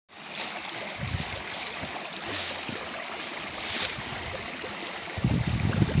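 Creek water flowing, a steady hiss. An irregular low rumble joins about five seconds in.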